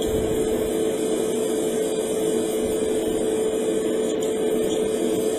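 Hobby spray booth extractor fan and airbrush compressor running: a steady drone with a constant hum.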